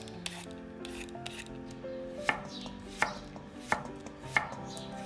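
Kitchen knife slicing through cucumber onto a wooden cutting board, a sharp chop about every 0.7 seconds starting about two seconds in.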